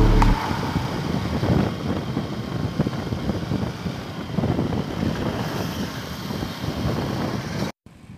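Wind buffeting the microphone over a steady rush of floodwater, cutting off abruptly near the end.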